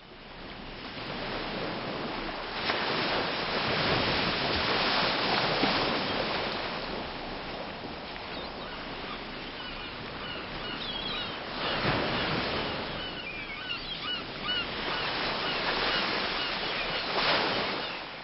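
Sea waves washing in and out in repeated swells, with seagulls calling: a cluster of short cries about half-way through.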